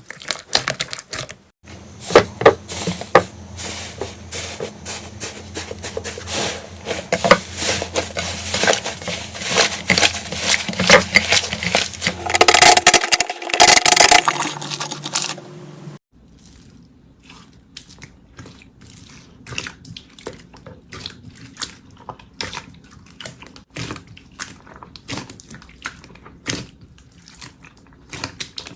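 Slime being squeezed and poked by hand, giving many sharp squishy clicks and pops. About halfway through it changes to a quieter clip with sparser clicks.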